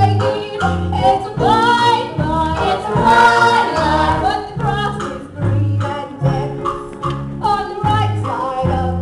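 Live musical-theatre number: women singing a lively show tune, with a couple of long held notes, over band accompaniment with a bass line on a steady bouncing beat.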